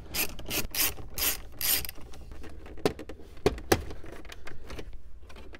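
Hand ratchet wrench clicking as it backs out 10 mm bolts, a run of about four clicks a second for the first two seconds, then a few scattered clicks and knocks.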